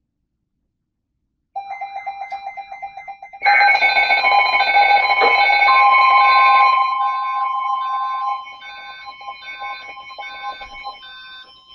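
Electronic emergency alert tones: several warbling and repeating beeping tones sounding together, starting about a second and a half in and jumping much louder two seconds later. A steady single tone joins midway, and the sound drops to a lower level near the end.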